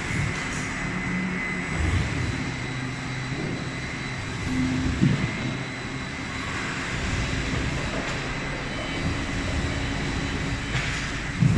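Veneer rotary lathe and its factory machinery running steadily, with a constant high whine over a low hum and occasional knocks.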